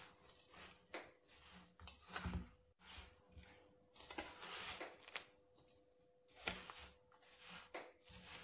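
Spatula stirring and scraping through a dry, crumbly mix of roasted semolina, ground nuts and fox nuts in a large steel tray: irregular scraping strokes, with the odd click of the spatula against the metal.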